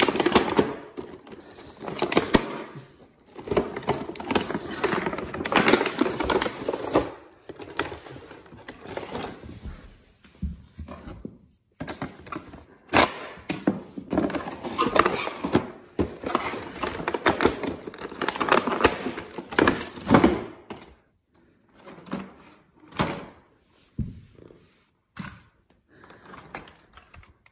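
Clear plastic packaging bag crinkling and rustling as it is pulled off a toy RC truck by hand, with many sharp clicks and a few knocks of the plastic truck on the hard floor. The handling thins out to scattered clicks and knocks over the last several seconds.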